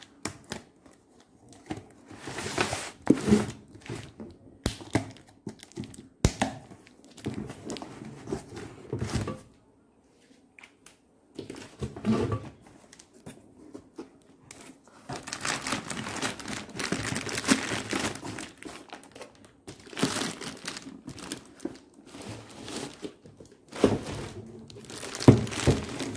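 Cardboard packaging being opened by hand: the box flaps scraping and tearing in uneven bursts, then the clear plastic bag around the solar charge controller crinkling as it is handled and lifted out.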